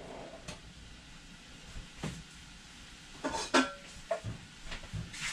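Cookware knocking and clanking as a pot lid is fetched and handled for a saucepan, a few separate knocks with the loudest a little past three seconds in.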